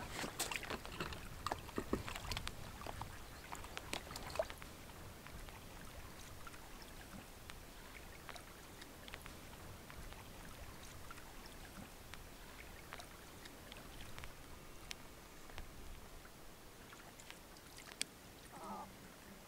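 Quiet riverside ambience: a few light clicks and small splashes in the first few seconds, then a faint steady hiss.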